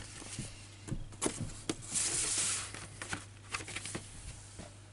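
Cardboard LP sleeves and paper inner sleeves being handled: light taps and clicks, with a sliding, rustling swish about two seconds in.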